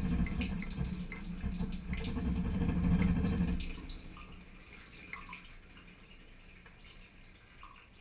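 Water spraying and splashing inside a Thermador Emerald dishwasher during a wash, over the low steady hum of its circulation pump. After about three and a half seconds the spray drops away to quieter dripping.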